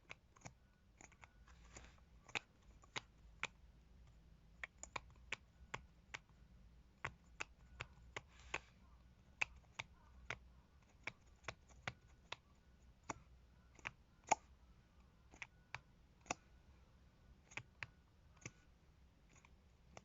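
Cosmetic container lids being opened and snapped shut: a string of sharp clicks at irregular intervals, about two a second, with a brief rustle of handling now and then.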